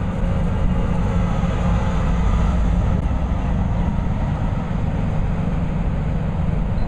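Steady low rumble of an idling heavy vehicle engine.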